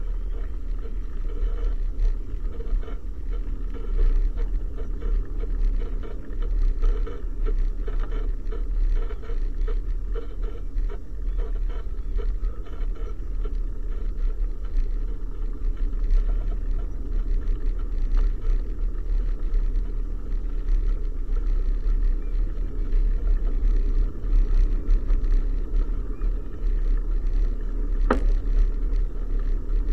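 Wind buffeting and road rumble picked up by a camera riding on a moving bicycle along a tarmac lane, with frequent small rattles and one sharp click about 28 seconds in.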